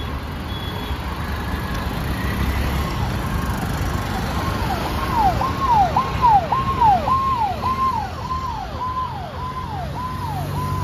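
Steady road traffic running, and from about halfway through a vehicle siren sounds in quick repeating falling sweeps, about two a second.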